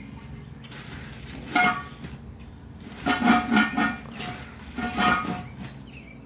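Cast-iron Dutch oven lid set onto the pot and worked on its rim: three short metallic scrapes with a ringing tone, about a second and a half in, at three seconds and at five seconds, the middle one longest and loudest.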